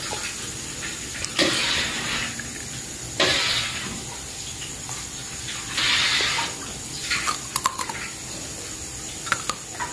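Hot cooking oil sizzling in a wok while kuih siput deep-fry. The sizzle surges in three short bursts, and a few light clicks of metal utensils come near the end.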